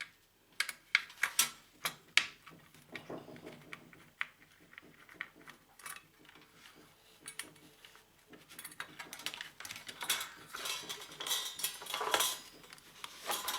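Metal parts and hand tools clinking and rattling while an oxygen generator is taken apart. There are a few sharp clinks at first, then denser clattering from about two-thirds of the way in.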